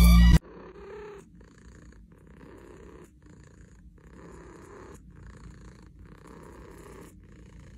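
Domestic cat purring, the purr coming in cycles of just under a second with brief breaks between them. Loud hip-hop music cuts off just at the start.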